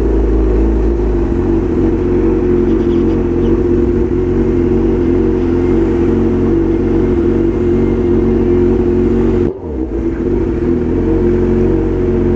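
Honda CB1000 inline-four motorcycle engine running steadily while being ridden. The sound dips sharply and briefly about nine and a half seconds in, then carries on.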